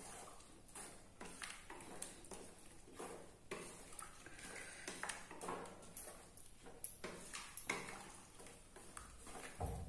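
Wooden spatula stirring a thick chicken curry in a kadhai, with irregular light knocks and scrapes against the pan.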